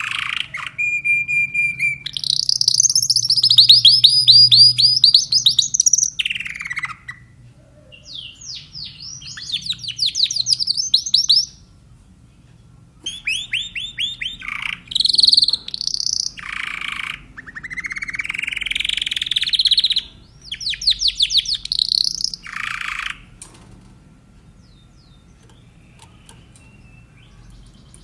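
Spanish timbrado canary singing: phrases of fast repeated notes and trills, some sweeping upward, broken by short pauses, with a longer pause of several seconds near the end.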